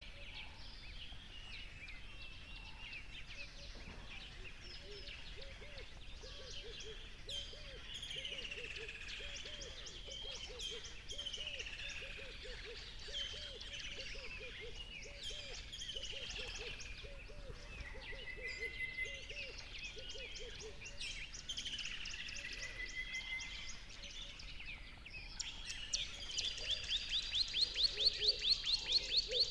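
Several wild birds singing and chirping together, with many overlapping high warbles and whistles. A low call repeats quickly underneath for about the first half, and near the end one bird gives a loud, fast run of repeated rising notes.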